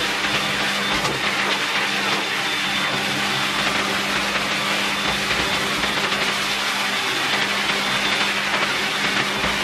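High-velocity dog-grooming dryer blowing air through its corrugated hose onto a wet dog's coat during drying after a bath. The air rushes steadily and loudly over a constant low motor hum.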